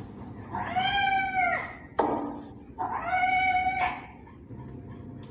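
Wet long-haired cat meowing twice in long drawn-out calls of about a second each, complaining while its fur is rubbed dry with a towel mitt. A single sharp click falls between the two calls.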